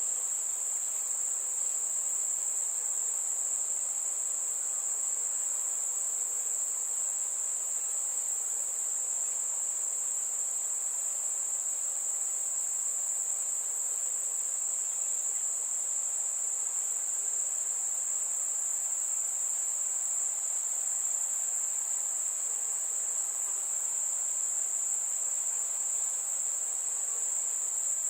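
Crickets trilling in a steady night chorus: one continuous high-pitched tone that never breaks, over a faint background hiss.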